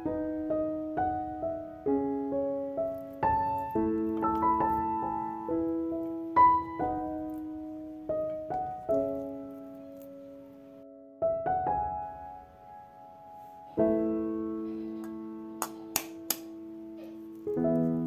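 Slow solo piano music, single ringing notes and chords fading after each strike. Near the end, three sharp taps cut through: a knife tapping an eggshell to crack it.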